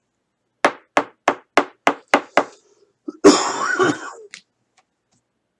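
A Panini Prizm trading card pack knocked sharply on the table seven times, about three knocks a second. Then about a second of crinkling wrapper as it is torn open, ending with a click.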